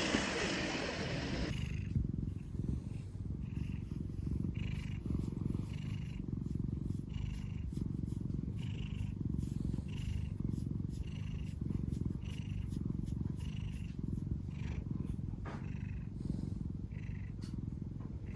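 Domestic cat purring close to the microphone: a steady low purr that swells and fades with each breath, about once a second, after a brief rustle at the start.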